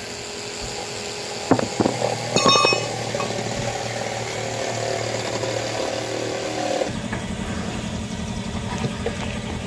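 An engine running steadily, its hum shifting about seven seconds in, with a few sharp knocks of tools against the tyre about two seconds in.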